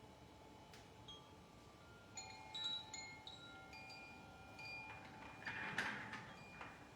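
Chimes ringing softly in a sound-healing session: scattered high metallic notes of different pitches that start at uneven moments about two seconds in and overlap as they ring on. A brief soft hiss of noise comes near the end.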